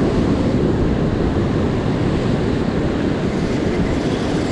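Surf breaking and washing up the beach, mixed with wind buffeting the microphone in a steady low rumble.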